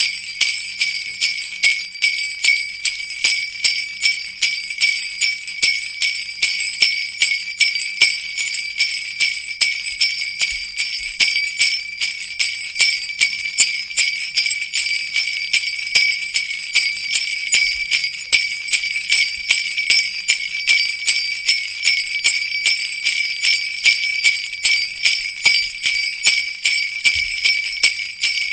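Sleigh bells shaken in a steady rhythm, about two shakes a second, a bright continuous jingling.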